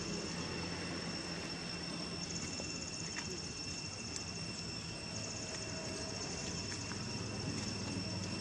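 Steady insect chorus: a continuous high, even buzz, joined about two seconds in by a second, faster pulsing trill that drops out briefly and returns about five seconds in, over a low background rumble.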